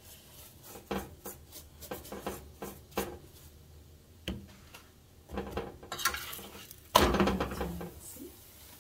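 Metal spoon tapping and scraping on a flat chapati pan while the chapati is oiled and turned, with scattered light clicks and a louder scrape and sizzle about seven seconds in.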